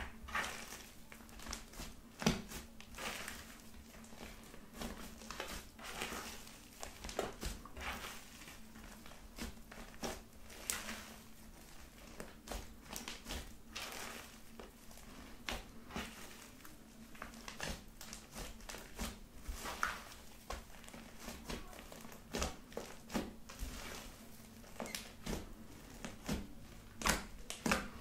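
Hands kneading, stretching and pressing a mass of fluffy slime mixed with body lotion, giving irregular sticky crackles and squelches that grow denser and louder near the end.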